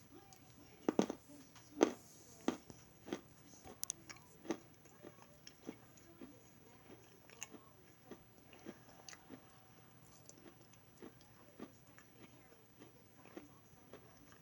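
Crunchy food being bitten and chewed: a run of sharp crunches, loudest in the first couple of seconds, then softer ones at about one to two a second.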